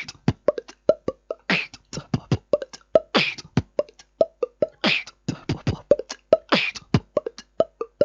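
Mouth beatbox beat built on the pop sound and hollow clops: a quick run of lip pops and clicks, several with a short hollow dropping tone, and a hissing snare hit about every second and a half.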